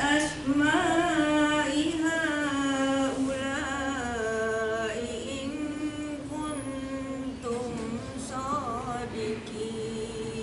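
A woman's voice reciting the Quran in Arabic into a microphone, chanted in the melodic tajwid style with long drawn-out vowels and ornamented pitch turns. The recitation grows softer in the second half.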